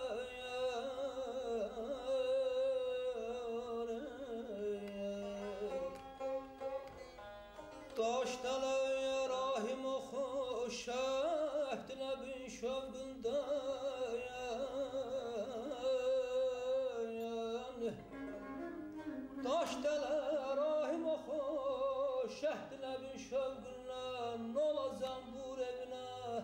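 Azerbaijani mugham singing: a male singer draws out long, wavering ornamented melismas between the lines of the ghazal over a string accompaniment.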